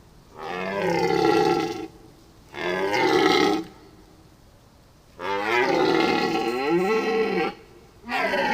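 A large farm animal calling: four long, pitched calls with short pauses between, the third the longest.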